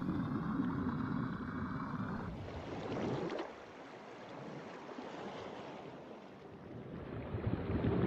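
Water rushing and splashing around a small submersible moving through the waves at the surface, falling to a softer wash about three seconds in.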